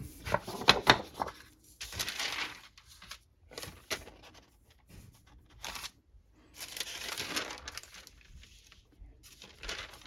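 Silicone parchment paper being handled, rustling and crinkling in irregular patches, with a few sharp clicks in the first second or so.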